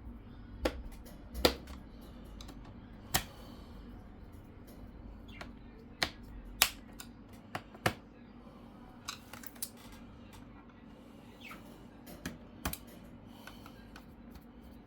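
Irregular sharp clicks and taps of a small screwdriver and screws against a laptop's plastic base as the screws are driven back in, about a dozen in all.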